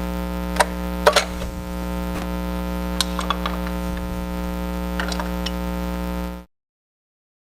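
Loud steady mains hum in the recording, with a few sharp metallic clicks and knocks from a pry bar working the front timing cover off an engine. The sound cuts off abruptly about six and a half seconds in.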